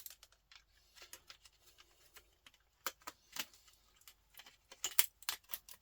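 Pliers clicking and snapping small components off a circuit board: a run of irregular sharp clicks and taps, with a few louder snaps about three seconds in and several more near the end.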